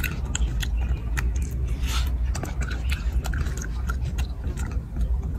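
A macaque biting and chewing juicy watermelon flesh: irregular wet crunches and smacks, several a second, over a steady low rumble.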